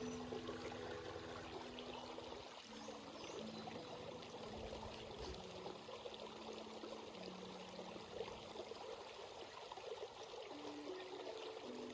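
A forest stream babbling and trickling steadily over rocks and pebbles. Under it runs a faint line of held low tones that shift in pitch every second or two.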